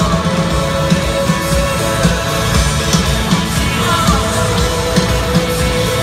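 Live band music played over a stadium sound system: rock-pop with a steady beat and sustained held notes.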